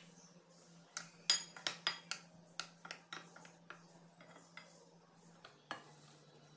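Metal spoon clinking and scraping against a glass bowl while stirring dry gram flour, a string of sharp clinks that thins out after about four seconds.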